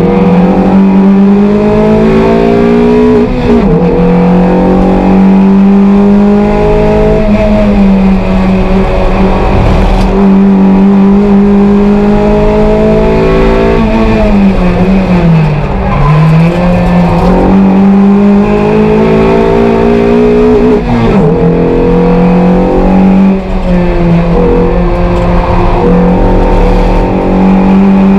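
Toyota MR2 race car's four-cylinder engine heard from inside the cockpit, held at high revs under racing load. The pitch climbs and falls quickly several times at gear changes, with one longer dip and climb back about halfway through.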